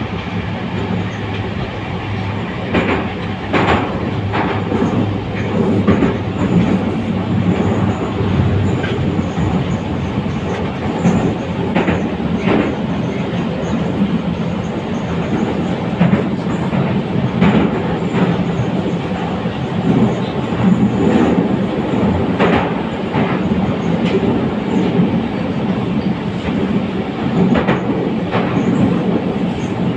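An 81-722.1 metro car running at speed through a tunnel, heard from inside the car: a steady loud rumble of wheels and running gear, with irregular sharp clacks every few seconds as the wheels pass over rail joints.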